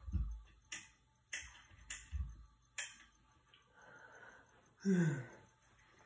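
A few sharp clicks and low thumps, then a short vocal sound sliding down in pitch about five seconds in.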